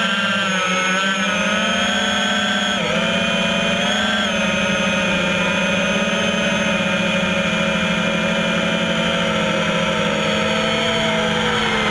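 A motor running steadily, its pitch wavering slightly, with a brief dip about three seconds in.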